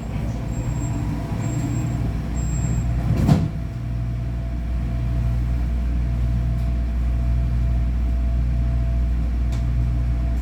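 Ui-Sinseol light rail train: a high repeated door-closing warning beep, then a single thud about three seconds in as the doors shut. After that comes the car's steady low running rumble with a faint steady motor tone as the train moves off.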